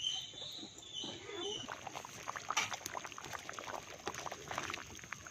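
A person eating, with quick irregular wet clicks and smacks of chewing. A few faint high chirps come in the first second and a half.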